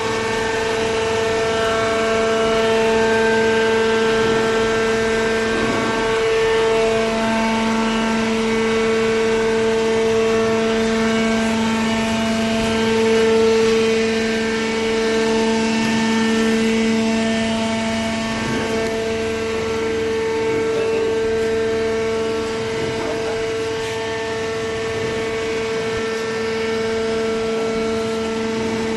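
Hydraulic paper baler's motor and pump running with a steady whine.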